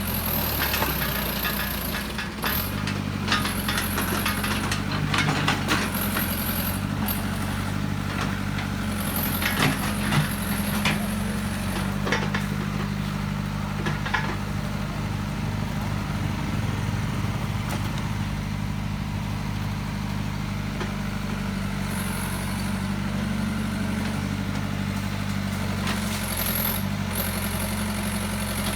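Excavator engine running steadily, with a scattering of knocks and scrapes as the bucket digs soil, busiest in the first half.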